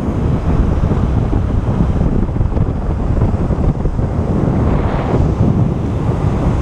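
Loud wind rumble buffeting the microphone over the wash of breaking surf.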